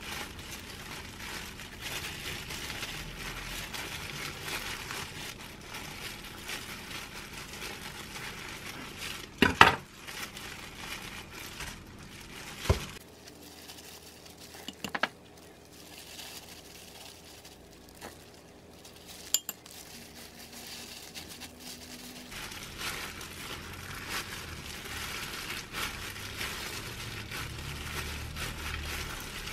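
Disposable plastic gloves crinkling and rustling as hands lay lettuce and filling on seaweed and roll and press a gimbap. A few sharp clinks and knocks are heard, the loudest about ten seconds in.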